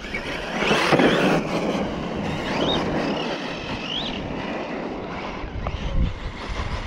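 Radio-controlled basher truck's electric motor whining up in pitch in two short bursts of throttle, over steady wind noise on the microphone.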